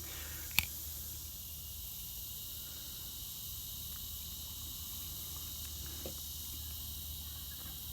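Steady high hiss with one sharp click about half a second in and a faint tap about six seconds in, from a rifle scope being handled.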